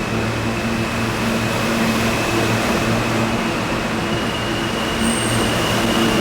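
R160 subway train running, a steady loud rumble with a high steady whine that steps up slightly in pitch about four seconds in.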